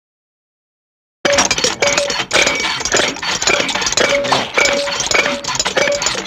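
Cartoon sound effect starting about a second in: a busy, continuous clatter of knocks and rattles with short pitched notes recurring through it.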